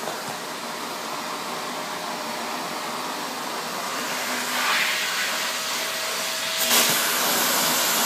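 Vacuum cleaner running, a steady rush of air through its hose with a faint hum, swelling briefly around the middle and getting louder after a click near the end.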